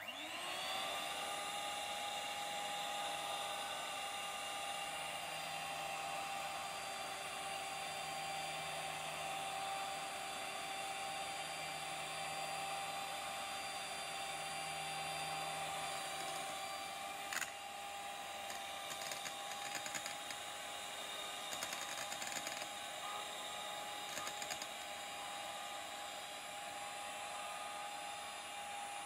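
Electric hand mixer running steadily, its twin beaters whipping a stiff white mixture in a bowl, with an even high motor whine. There is a sharp knock about two-thirds of the way in, then scattered light clicks for several seconds.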